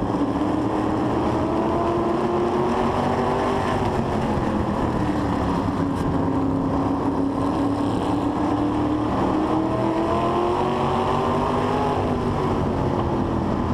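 Asphalt modified race car's V8 engine heard onboard at racing speed, pitch climbing under throttle along the straights and dropping as it lifts off: it rises over the first few seconds, dips briefly, climbs steadily for most of the rest, then falls near the end.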